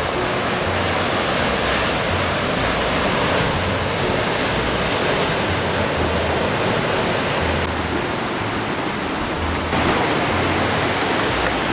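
Steady rushing of falling water and surf, a dense, even noise with no break. It shifts slightly in tone about ten seconds in.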